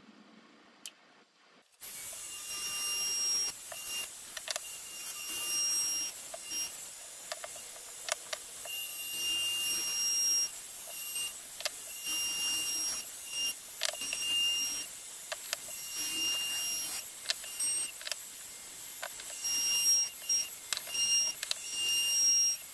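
Compact trim router starting about two seconds in and running with a high whine as it rounds over the edges of softwood boards; the cutting noise rises and falls as the bit works along each edge.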